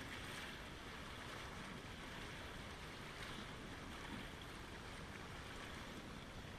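Small waves lapping and washing over a pebble shore and splashing against rocks: a steady wash of water that swells a little with each wave.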